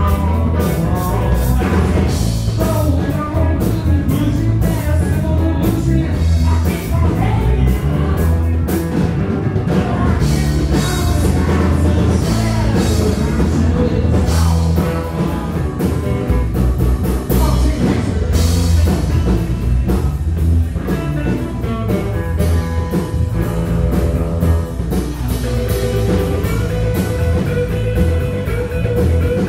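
Rock band playing live: electric guitar, bass guitar and drum kit with cymbals, loud and steady throughout.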